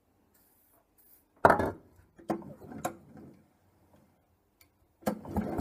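Knocks and clicks from hands working the recoil pull-starter housing of a vintage Tecumseh two-stroke engine. One loud knock comes about a second and a half in, two lighter clicks follow, and a quick clatter of knocks comes near the end.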